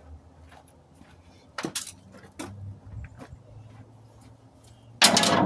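Metal objects clinking and knocking as tools or parts are handled: scattered light clicks, two sharper clanks about two seconds in, then a loud rattling clatter near the end.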